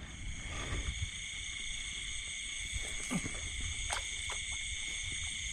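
Night chorus of insects and frogs in the rice paddies: several steady, high-pitched buzzing trills that go on unbroken, over a low rumble. A few faint clicks come about three and four seconds in.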